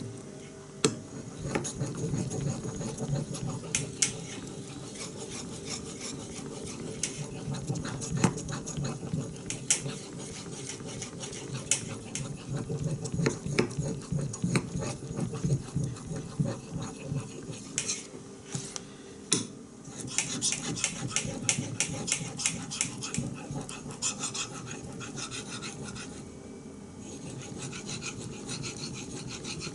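A steel knife blade stroked back and forth across a wet whetstone: a rhythmic gritty rasping, uneven in loudness, with many light clicks and ticks, busiest near the end.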